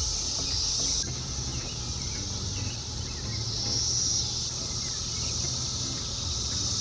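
Chorus of Brood X periodical cicadas: a steady high-pitched drone that swells a little twice, over a low steady rumble.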